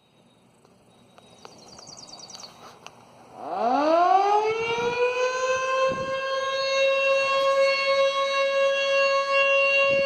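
Federal Signal Model 2 electromechanical siren starting up about three and a half seconds in: its tone winds up in a steep rising glide, levels off within about two seconds and holds a steady, loud tone, sounded for a test. Before the start-up there is only faint background with a few clicks.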